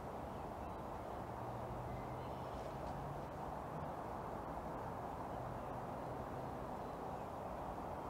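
Steady outdoor background noise, a dull even hiss, with a faint low hum from about one second in to about six seconds in.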